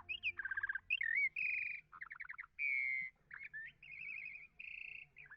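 A songbird singing a varied, rapid song: wavering high whistles, buzzy rattling trills and quick down-slurred notes, one phrase after another with short gaps.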